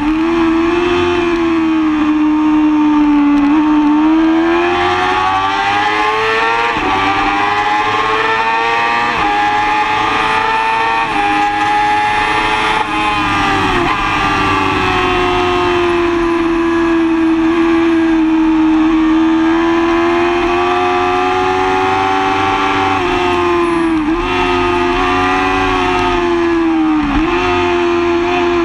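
A 2005 Yamaha R6's 600 cc inline-four engine at high revs on a race track, with wind rush over the bike. Its pitch climbs in several steps as it accelerates, holds steady through a long middle stretch, and dips sharply a few times near the end.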